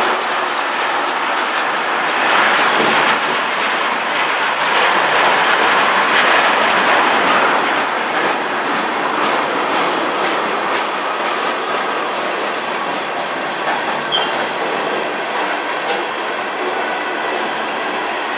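Freight train of tank cars and covered hoppers rolling past close by: steel wheels running on the rail with repeated clicks over the joints. It is loudest in the first half.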